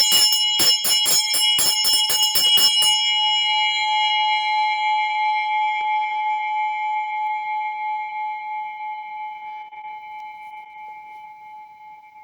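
A handbell shaken so its clapper strikes rapidly, about four times a second, for the first three seconds. The bell is then left to ring out, one clear tone fading slowly.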